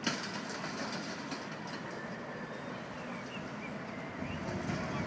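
A tram approaching along the street, its rolling noise growing louder near the end, over steady street noise. A brief sharp click at the very start.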